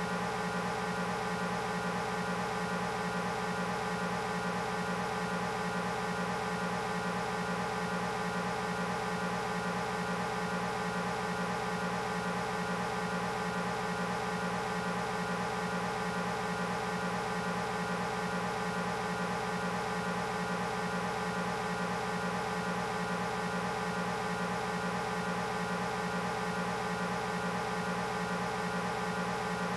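A steady electronic hum made of several held tones at once, unchanging in pitch and level throughout.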